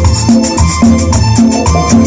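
A band playing upbeat Latin dance music live, with strong bass and a steady beat about twice a second.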